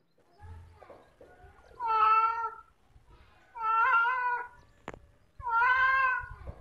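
A cat meowing three times, each call drawn out and about two seconds after the last, with a sharp click between the second and third.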